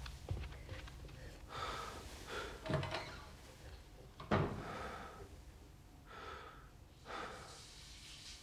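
A person breathing heavily: about five loud, noisy breaths one to two seconds apart, the sharpest a sudden gasp a little past the middle.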